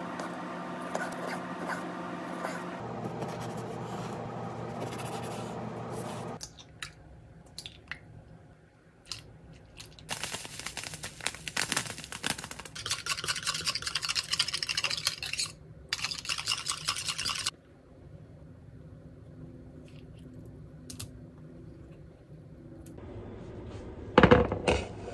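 Kitchen handling sounds: scraping and rubbing against a bowl and utensils, then near the end loud knocks and clatter as a metal muffin tin is set down on the counter.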